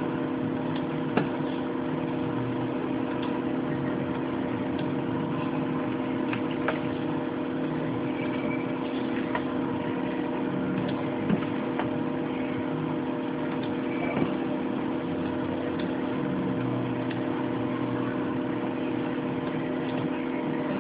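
Steady machine hum with several fixed tones running under the recording, with a few faint, short clicks scattered through it.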